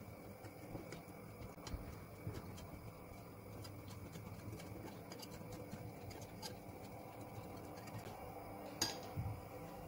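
Wire whisk beating cornflour into orange juice in a ceramic bowl: faint quick ticks and light clinks of the wires against the bowl, with a sharper clink near the end.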